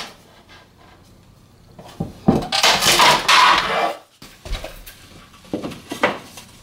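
A laminate floor board being cut on a laminate cutter: one loud crunching cut of about two seconds, starting about two seconds in, followed by a few knocks and clicks as the board and cut-off piece are handled.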